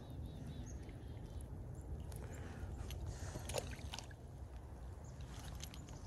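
Faint outdoor background with a low steady rumble and a few light clicks and ticks from handling a wooden hand-line spool and hook while baiting.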